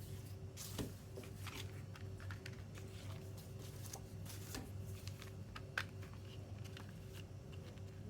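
Hands handling a CD album package, with paper and plastic rustling and scattered light clicks and taps over a steady low hum.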